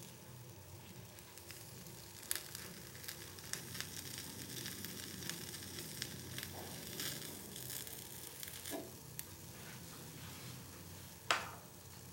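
Faint sizzling of a rice-flour crepe cooking on a hot flat iron griddle, with scattered small crackles. There are two sharper taps, about two seconds in and near the end.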